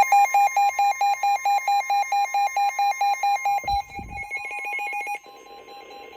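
NOAA weather radios sounding their alert alarms for a severe thunderstorm warning: several fast-pulsing electronic beeps overlap, with a faint steady tone beneath. About four seconds in the beeping changes pattern, and about five seconds in it drops to a quieter pulsing.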